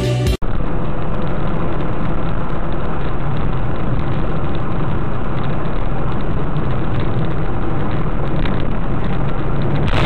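Steady engine and tyre noise heard from inside the cabin of a car driving along a road. A music intro cuts off about half a second in, just before it.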